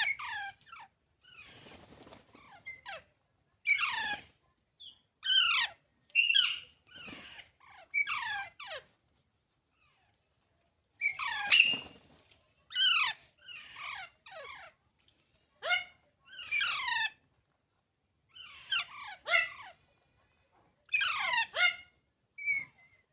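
Baby parrot chicks calling: a string of short high calls, each sliding steeply down in pitch, coming in clusters of two or three with short pauses between.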